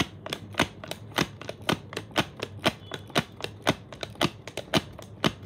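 Folded paper origami mouth worked open and shut by hand, the stiff paper clicking and crackling sharply about four times a second in an even rhythm.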